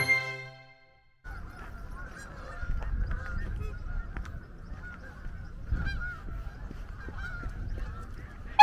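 Many faint, wavering goose honks, like a flock calling continuously, over a low wind rumble. The tail of a jingling music bed is heard first.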